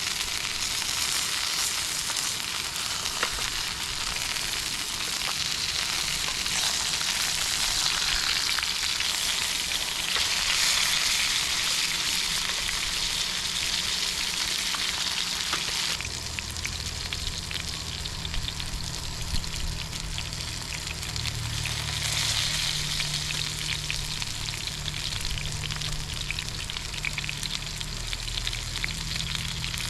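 Beef burgers frying in a pan, a steady sizzle with fine crackles. About halfway through the sizzle gets quieter and a low steady hum comes in under it.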